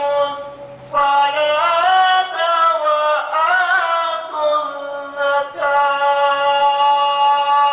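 A solo voice singing, with long held notes and ornamented slides in pitch. It breaks off briefly under a second in, and ends on one long steady note.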